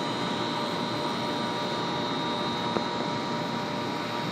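Steady hiss of a brazing torch flame heating a copper pipe joint, with a faint steady hum and one small click near the end.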